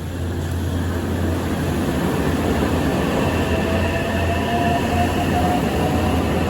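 A train running past, growing louder over the first couple of seconds and then holding steady, with a deep steady hum and a faint high whine that comes in about halfway through.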